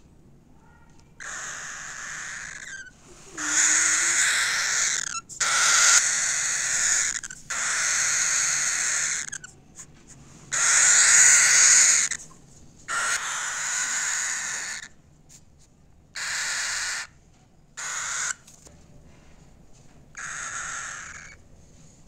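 A cockatiel chick giving about ten raspy, hissing calls, each up to about two seconds long, with short pauses between them.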